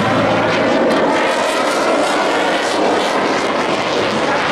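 KAI T-50i Golden Eagle jet trainer's single turbofan engine, a loud, steady rushing noise as the jet flies past low overhead.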